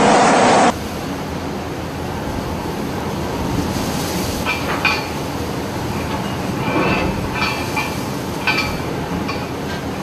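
Storm wind and heavy sea rushing against the microphone. A louder rush cuts off abruptly less than a second in, and the noise goes on steady and lower. From about four seconds in there are scattered short high squeaks and clicks.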